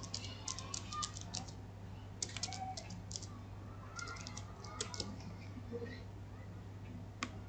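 Typing on a computer keyboard: three quick bursts of keystrokes, then a single click near the end.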